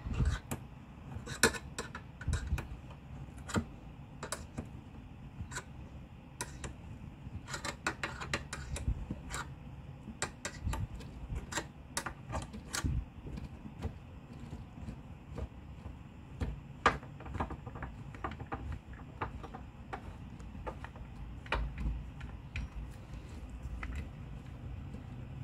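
Irregular light clicks and clacks, a few louder than the rest, as the tire tool holding the bead is slowly worked and released, over a low steady hum.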